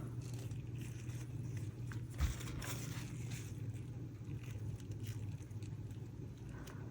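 Faint scrapes and rustles of dried flowers and stems being handled and pushed into resin in a mold, with one soft knock about two seconds in, over a steady low hum.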